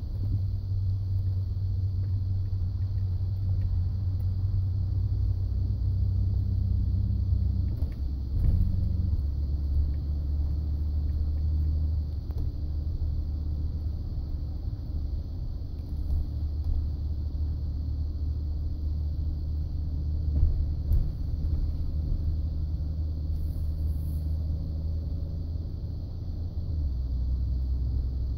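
Ford F-150 pickup running, heard as a steady low rumble that steps lower in pitch about eight seconds in and again near the end.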